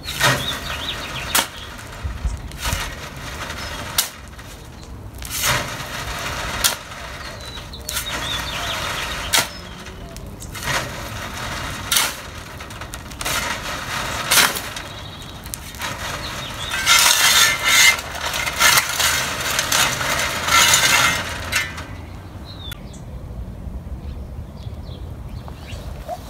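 Metal shovel digging into hard-packed, rocky soil: a string of crunching strikes as the blade is driven in, about one every second or two, with a longer run of scraping and rattling stones about two-thirds of the way through.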